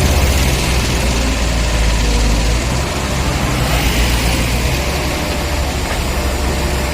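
Diesel engine of a JCB backhoe loader running steadily, its low hum heavier for the first two or three seconds and then easing off.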